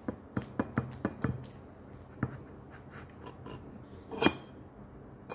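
Metal fork clicking and tapping against a plate: a quick run of light taps in the first second or so, a single clink about two seconds in, and the loudest clink about four seconds in.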